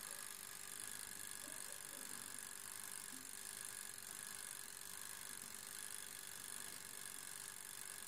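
Toaster oven running with both heating elements on: a faint steady hum with one constant tone.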